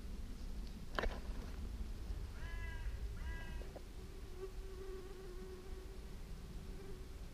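A fly buzzing close by, a steady hum lasting about three seconds in the second half. Before it come a sharp click about a second in and two short pitched calls in the middle.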